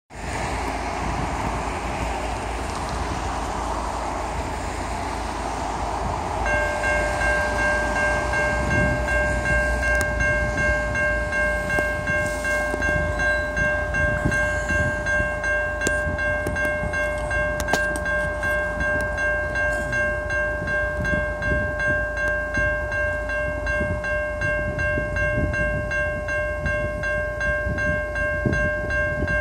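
Railroad crossing warning bell starting about six seconds in and ringing steadily with a quick, even beat as the crossing activates, over a low steady background noise.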